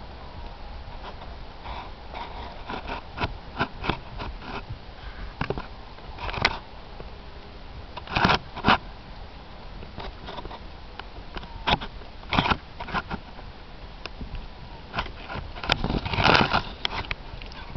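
A young Thoroughbred gelding moving on grass under a rider: irregular hoofbeats with tack and saddle knocks and scrapes, and a few louder short blasts of noise.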